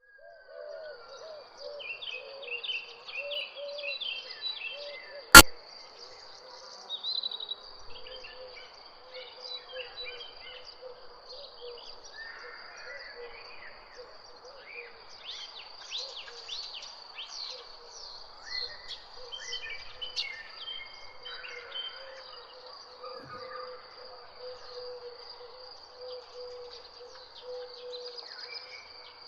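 Mixed songbirds chirping and calling over a steady, high insect trill, with a lower wavering call. A single sharp click about five seconds in is the loudest sound.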